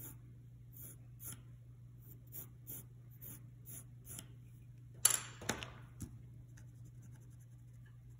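Graphite pencil drawing on graph paper in a run of short strokes, about three a second, over the first four seconds. About five seconds in comes one sharp knock with a brief rustle, the loudest sound, then a few faint taps.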